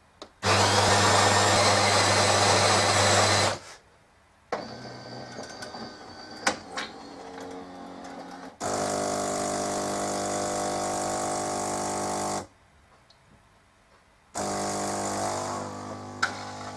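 Melitta Caffeo CI bean-to-cup coffee machine running a full brew cycle: the grinder runs loudly for about three seconds, the brewing unit whirs and clicks, then the water pump hums steadily in two stretches of several seconds each with a short pause between. The newly repaired machine is brewing coffee normally.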